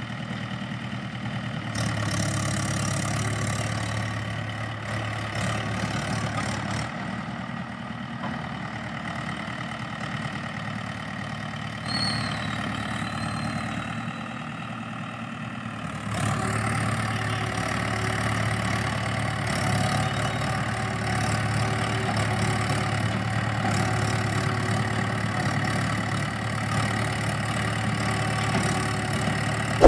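Diesel tractor engine idling steadily, its low hum changing abruptly a few times.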